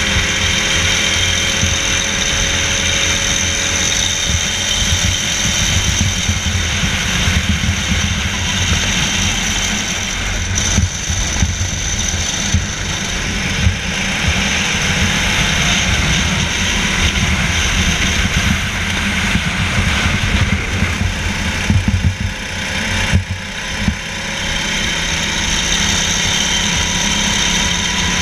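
Go-kart engine running hard, heard from the driver's seat, its pitch rising and falling through the corners. The engine note drops briefly about 23 seconds in, then climbs again, with a few knocks from the kart along the way.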